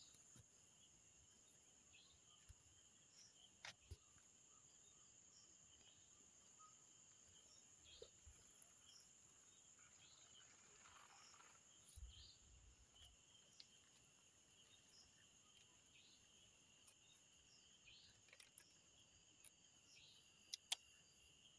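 Faint, steady high-pitched chirring of night crickets, with a few soft clicks scattered through and two sharper ticks near the end.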